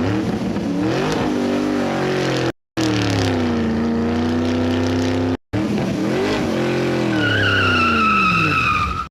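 Car engine sound effect revving up and down, in three spliced pieces with abrupt short silences after about two and a half seconds and again near the middle. A high, slightly falling squeal joins over the last two seconds.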